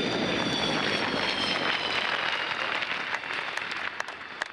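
Twin jet engines of the MiG-29M OVT fighter, Klimov RD-33 turbofans, running down during the landing roll. A steady rush of jet noise carries a high whine that slowly falls in pitch and fades. A few scattered handclaps start near the end.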